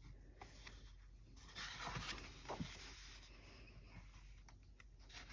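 Faint paper rustle and swish of a picture book's page being turned by hand, strongest about a second and a half to two and a half seconds in, with a few light taps of fingers on the page.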